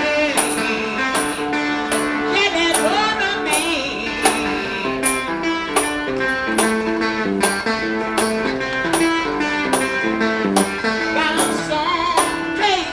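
Blues song sung by a man to his own fingerpicked guitar. A sharp high jingle marks the beat about twice a second.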